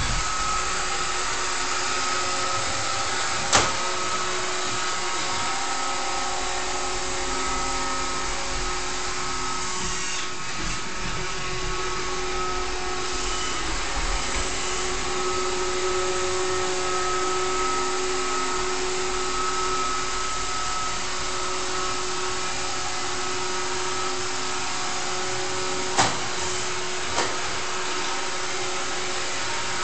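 iRobot Roomba 530 robot vacuum running steadily, its motor and brushes giving an even whirr with a steady hum. Three sharp knocks come through: one about three seconds in and two close together near the end.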